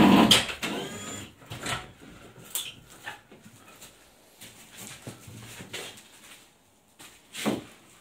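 Workers handling adhesive-coated basalt mineral wool slabs for ceiling soundproofing: a loud thump right at the start with a short squeal just after it, then scattered knocks and rustles.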